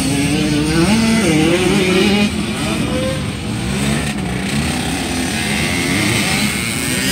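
Small youth motocross dirt bike engines running on a dirt track, their pitch rising and falling as the riders open and close the throttle.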